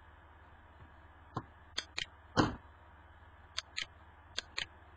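Computer mouse clicking: several sharp clicks, mostly in pairs, with one louder soft thump about halfway through.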